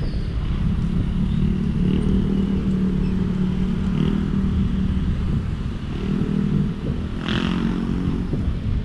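Wind rushing over the microphone of an electric scooter riding through city traffic, with a low, steady hum of motor vehicles running alongside. A brief louder rush of noise comes near the end.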